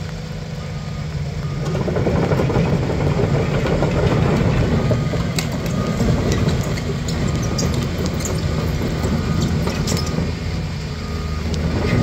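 Doosan DX225LC-7 excavator's diesel engine idling steadily, growing louder about two seconds in.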